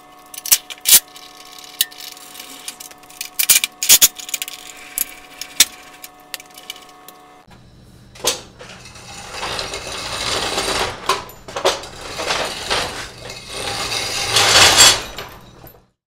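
Sharp metal clanks and rattles of a trailer hitch being worked as the sawmill's tongue is unhooked from the tractor's hitch ball, over a steady hum that stops about halfway. After that a louder rushing noise rises, with more clatter in it.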